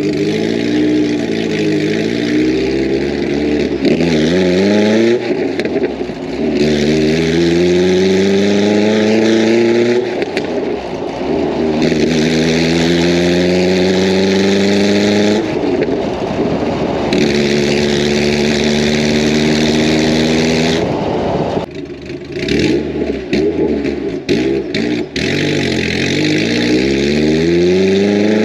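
Honda Civic's built B20 VTEC four-cylinder engine accelerating hard in several pulls, its pitch rising through each gear and dropping at each shift. Near the end it comes off throttle with a few sharp cracks, then pulls again.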